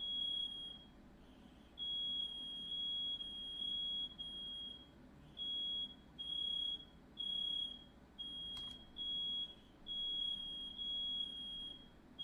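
Smoke alarm sounding, set off by smoke from a firework lit indoors: a high-pitched beep repeating on and off about once every half-second to second. A single sharp click about two-thirds of the way through.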